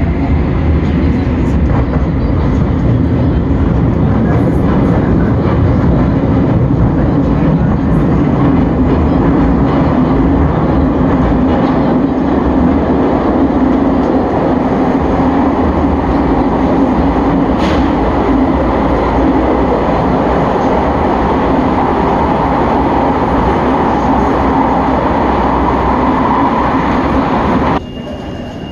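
Bucharest Metro CAF train running, heard from inside the car: a loud, steady rumble of wheels on rail with a motor hum, and a single click about two thirds of the way through. Near the end the sound drops abruptly to a quieter one with a steady high beep.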